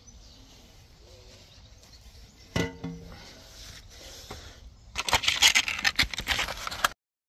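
Cast-iron manhole cover being handled: a single metallic clank with a brief ring about two and a half seconds in, then about two seconds of loud scraping and knocking that cuts off suddenly.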